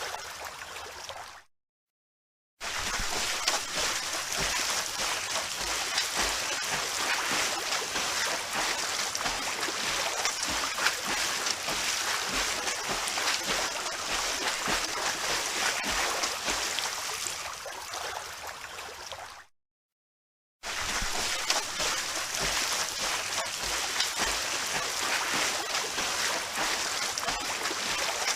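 Swimmers splashing in a pool: continuous churning and slapping of water. It fades out to dead silence about a second and a half in and again about two-thirds of the way through, each time cutting back in abruptly after about a second.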